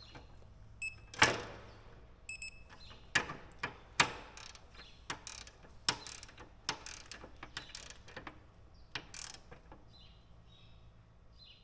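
A digital torque wrench tightening cutter-bar section bolts. Irregular sharp clicks and metal knocks run throughout, and short high electronic beeps about a second in and again near two and a half seconds signal that the set torque has been reached.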